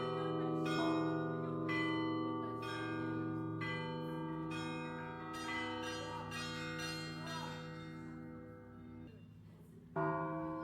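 Russian Orthodox church bells ringing: a run of strikes on the smaller bells, about one or two a second, over the long hum of the larger bells. The ringing dies away about nine seconds in, and a fresh strike sounds near the end.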